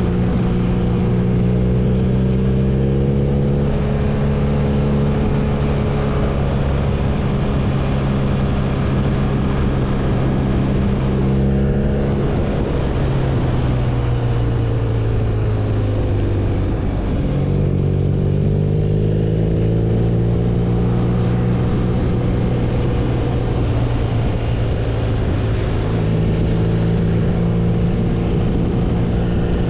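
BMW R nineT's 1170 cc boxer twin running on the road at a steady pace. Its pitch falls gradually a little before the middle, then rises again.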